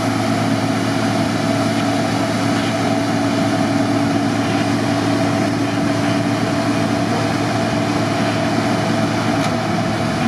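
Jeep Cherokee XJ engine held at steady high revs while the Jeep sits stuck nose-down in a mud hole, its wheels spinning and digging into the mud.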